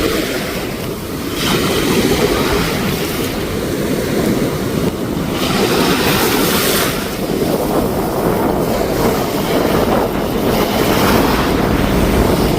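Sea surf washing ashore again and again, each wave a swelling hiss, over a steady low rumble of wind on the microphone.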